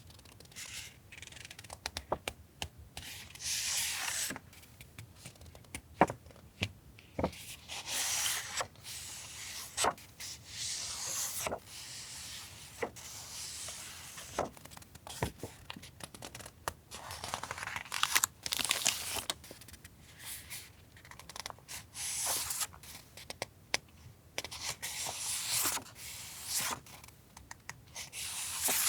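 Paper stationery and its packaging being handled by hand: repeated rustling and sliding swishes of a second or two each, with scattered light clicks and taps between them.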